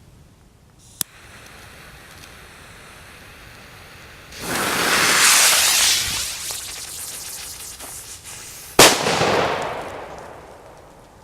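WECO Kanonenschlag banger firecracker: its fuse hisses, growing much louder about four seconds in, then the banger goes off in one sharp, loud bang near the end, with a tail that dies away over about two seconds.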